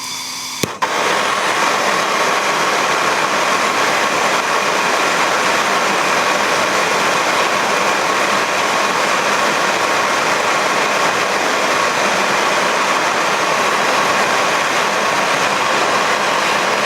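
MAPP gas plumbing torch burning with a steady hiss, starting with a sharp click just under a second in, heating a copper connector so 50-50 solder is drawn into the joint.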